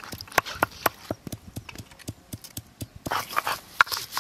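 Sharp, irregular clicks and knocks as cauliflower florets are washed by hand in a steel bowl. About three seconds in, this gives way to a rough, rhythmic scraping of garlic being ground on a stone slab with a stone roller.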